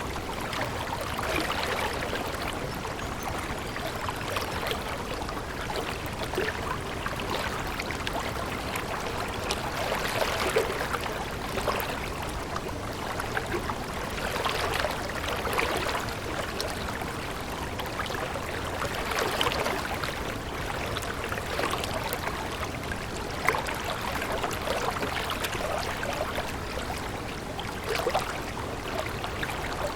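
Stream babbling steadily, with small splashes and gentle swells in the flow every few seconds.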